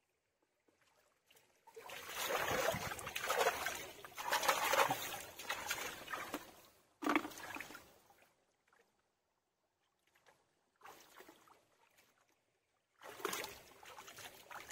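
Shallow water sloshing and splashing in uneven stretches, loudest in the first half, with a short sharp splash about seven seconds in and more sloshing near the end.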